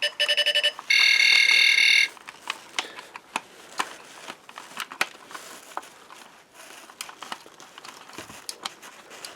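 Buzz Lightyear action figure's laser sound effect from its small built-in speaker: a quick run of electronic beeps, then a steady electronic buzzing tone for about a second that stops suddenly. Light scattered clicks follow for the rest of the time.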